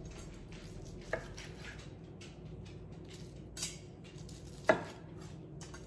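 Chef's knife slicing roast chicken breast on a wooden cutting board: quiet cutting strokes with light taps of the blade on the board, and one sharp knock near the end.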